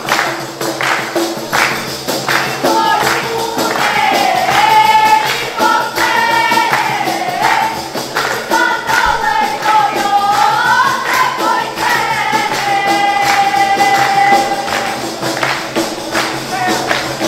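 Albanian wedding music played by defatore on def frame drums, beaten in a steady rhythm. A wavering sung melody comes in about three seconds in and carries on until near the end.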